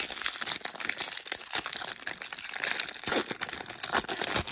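Crinkling and rustling of a trading-card pack wrapper, with the cards being handled, in continuous small crackles.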